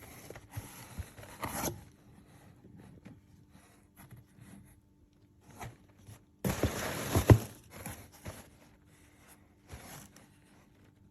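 Product packaging being handled and opened: two spells of rustling, scraping noise, the louder one about six seconds in with a sharp knock, and scattered small clicks and taps between.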